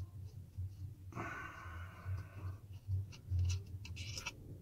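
Small metallic clicks, taps and a drawn-out rasp as the rotor nut of a Penn Affinity 8000 spinning reel is worked loose and unscrewed, over dull handling thumps.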